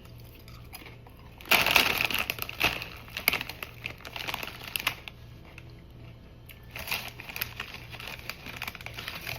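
Crinkly plastic snack-chip bag rustling and crackling as a hand rummages in it and handles the chips, in two spells, the first about a second and a half in and the second near the end.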